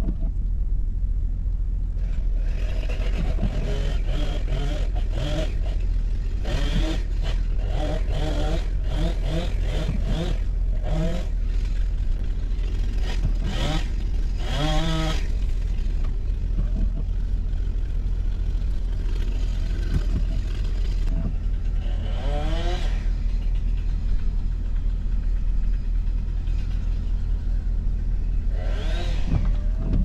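An engine revved in short repeated bursts, its pitch rising with each one, over a steady low rumble; the bursts are thickest in the first half and come again twice near the end.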